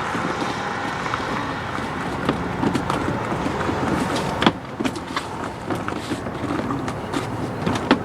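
Plastic clicks and creaks as the glove box's side claws are pushed in to release it, with one sharp click about four and a half seconds in, over a steady background noise.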